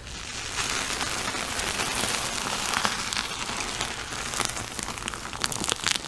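A steady hiss with scattered faint crackles, much like rain falling on a surface.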